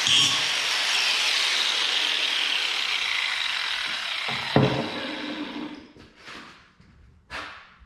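Milwaukee portable bandsaw cutting, its blade running steadily. About four and a half seconds in there is a sharp clank and the saw sound dies away, followed by a couple of short knocks.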